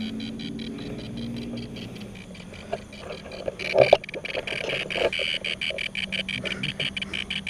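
Handheld Ghost Meter Pro EMF meter ticking rapidly over a steady high electronic tone, the sign that it is registering a field. A brief louder knock about four seconds in.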